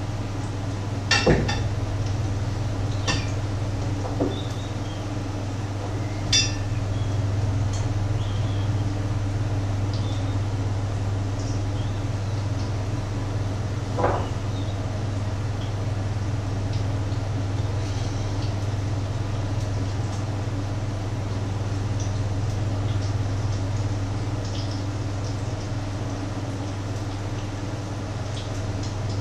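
Dishes and cookware clinking as a plate and frying pans are handled at a stove: several sharp clinks in the first few seconds and one more about halfway through, over a steady low hum.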